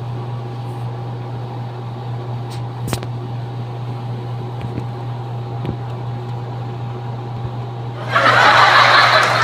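Steady low hum with a faint high whine, like a fan or appliance motor running. About eight seconds in, a loud rushing noise effect starts and lasts about a second and a half: a Messenger sound emoji being played back.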